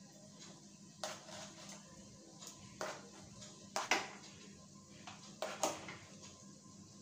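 A kitchen knife stabbing into a long green brinjal (eggplant), its tip knocking against a wooden chopping board: about half a dozen sharp taps, unevenly spaced, the loudest about four seconds in.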